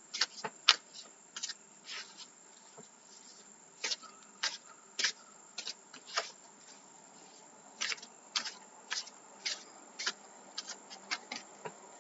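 Tarot cards being handled on a table: a string of short, sharp snaps and taps at irregular intervals as cards are moved and laid down.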